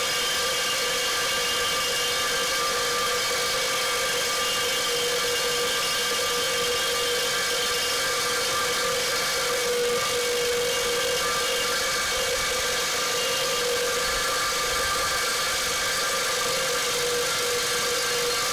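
Reciprocating saw running steadily with a Milwaukee Torch Nitrus Carbide blade rasping through a steel pipe. The saw is worked one-handed, so the blade cuts slowly under little more than the saw's own weight.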